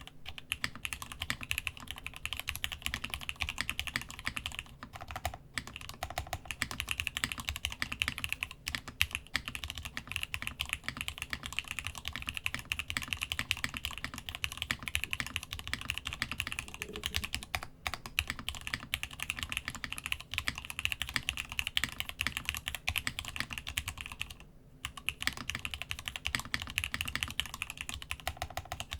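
Steady typing on a Masjewerke Muramasa mechanical keyboard with spring-swapped, lubed Gat X switches, lubed Cherry clip-in stabilisers and DCD Gondor keycaps, on a thick desk mat over a solid wood desk. A dense run of keystrokes, with a short pause about 24 seconds in.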